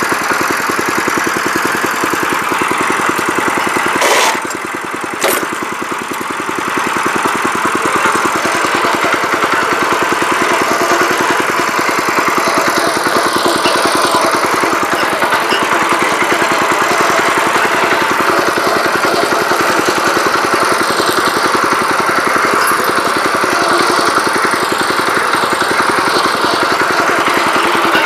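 Small single-cylinder engine of a walk-behind power weeder running steadily while the machine is driven along under clutch and gear. About four to five seconds in the sound dips briefly and there are two sharp clicks.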